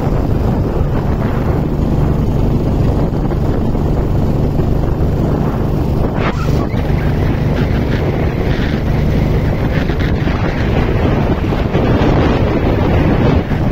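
Wind buffeting the phone's microphone on a moving vehicle, over the vehicle's steady low running and road noise, with a short knock about six seconds in.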